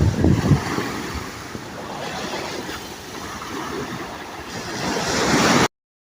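Sea waves washing with wind buffeting the microphone, heaviest in the first half second and swelling again later; the sound cuts out completely for a moment near the end.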